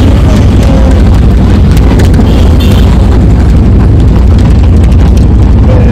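Riding in a road vehicle: a loud, steady, distorted low rumble that overloads the microphone.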